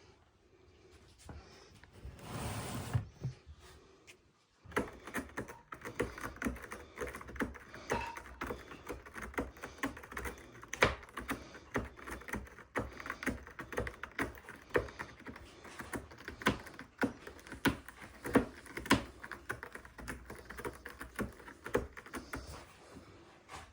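Cat litter granules being scratched and stirred, a dense run of irregular crisp clicks and rattles that starts about four and a half seconds in, after a short low rumble.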